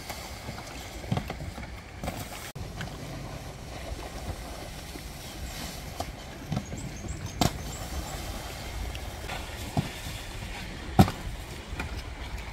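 Steady outdoor rumble of wind and water at a cable wakeboard lake. It is broken by about half a dozen short, sharp knocks, the loudest about eleven seconds in and another at the very end.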